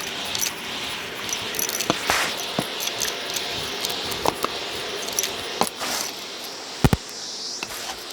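Close-mic'd vacuum cleaner running steadily while picking up a sprinkled grit mix from a rug, the particles rattling and clicking as they are sucked up, with a single sharp knock about seven seconds in.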